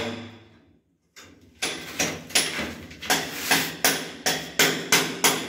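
Sharp, evenly spaced percussive strikes, about three a second, with a brief dropout to silence about a second in before the beat resumes.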